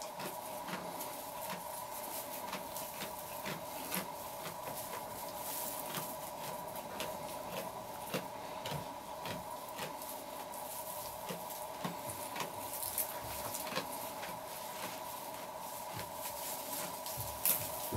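Chamois eating hay: irregular crunching and rustling as it pulls and chews the dry hay, over a steady hum.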